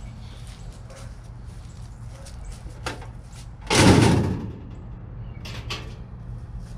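A flattened scrap sheet-metal shell dropped or tossed down, one loud clattering crash about four seconds in that dies away within half a second, with a few light knocks before and after.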